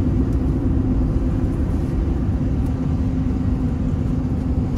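Car cabin road noise while driving: a steady low rumble of tyres and engine with a constant low hum.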